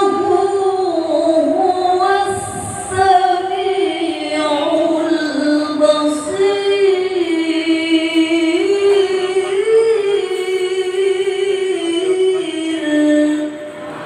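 Qur'anic recitation sung in a high voice, a long vowel held and ornamented melismatically, the pitch winding up and down through small turns.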